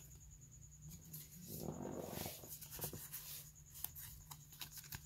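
Faint handling of Pokémon trading cards: the cards of a freshly opened booster pack sliding against each other, with a few light ticks as they are shifted in the hands.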